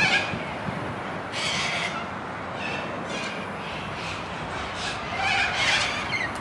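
Birds in the trees giving short, scratchy calls every second or so, over a steady background hiss.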